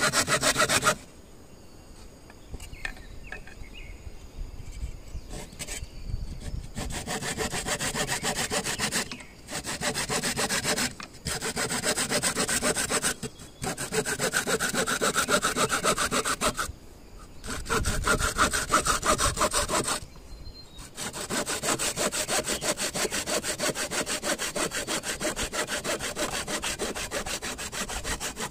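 Saw cutting bamboo with rapid, repeated back-and-forth strokes. The strokes come in runs broken by short pauses, with a quieter stretch of a few seconds near the start.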